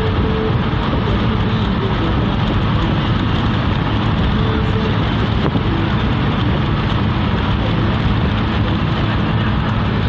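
Steady road noise inside a moving car's cabin: tyre and wind rush with a low engine hum.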